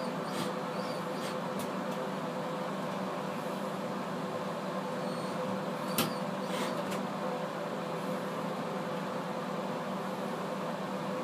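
Steady mechanical hum, with a few light clicks and one sharper click or tap about six seconds in.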